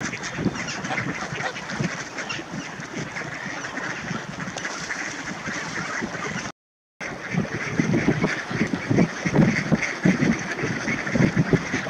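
A large flock of mallards quacking over one another in a continuous din. The sound drops out for a moment about two-thirds of the way through, then the calls come back louder.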